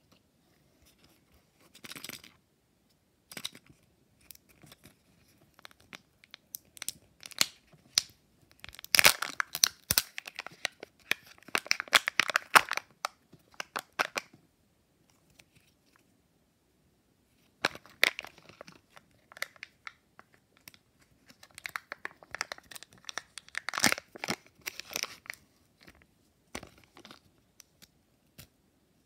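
Kinder Joy egg packaging handled by hand: plastic wrappers torn and crinkled, with sharp plastic clicks and snaps, in two busy spells separated by a short pause.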